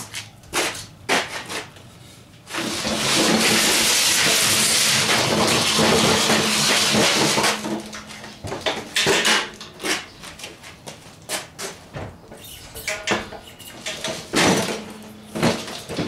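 A motorcycle being spun around by hand on its center stand. About two and a half seconds in, a loud scraping begins as the metal stand is dragged round on the shed floor, lasting about five seconds. Clunks and knocks of the bike being handled come before and after it.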